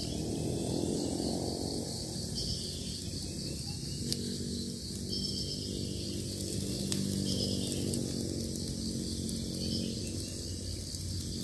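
Insects chirping steadily in a high band over a low droning hum, with a few sharp crackles from the wood cooking fire.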